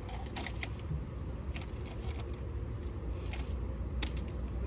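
Irregular light clicks and clinks of small hard objects being handled, several times a second at moments, over a steady low rumble.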